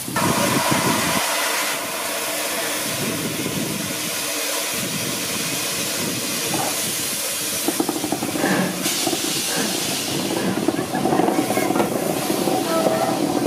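4F 0-6-0 steam locomotive No. 43924 with a steady loud hiss of escaping steam. From about eight seconds in, heavier, rougher low noise joins as the engine moves slowly with steam blowing from its cylinder drain cocks.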